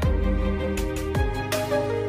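Background music: an electronic pop track with held chords and a beat of deep, downward-sweeping kick drums, two in this stretch, with no singing.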